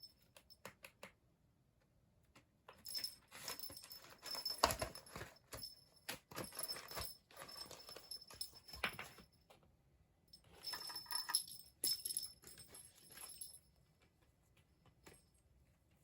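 A small bell jingling in bursts with rustling as a kitten plays: a few clicks at first, then a long spell of jingling, a short pause, and another spell.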